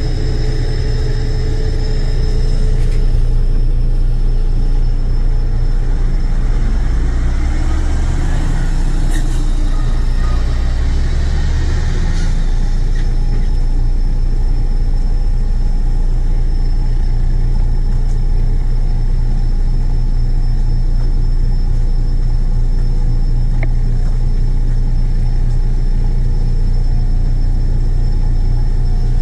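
A heavy engine running steadily with a deep rumble and a faint thin high whine, its pitch shifting briefly about a third of the way through.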